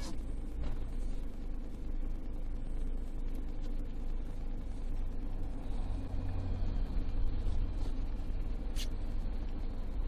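Steady engine and road noise heard from inside a van's cab as it creeps along a street. About halfway through, a bus passes close alongside and its low rumble swells for a couple of seconds.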